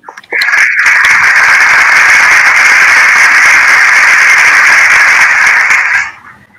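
Crowd applause: a loud, dense, even clatter of many clapping hands that starts abruptly just after the start and fades out near the end.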